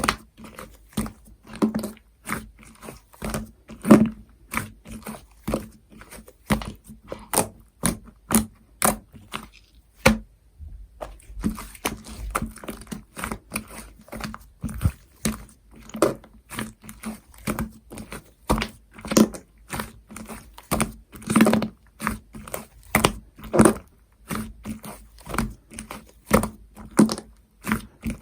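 Slime being pressed and squished by hand, giving sticky clicks and pops about two a second, with a short pause about ten seconds in.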